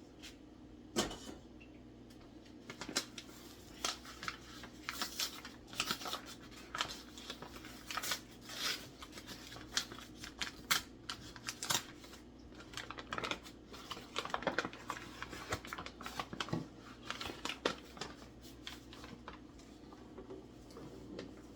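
Kitchen food-preparation handling: many irregular taps, clicks and rustles of hands and utensils at work, over a steady low hum.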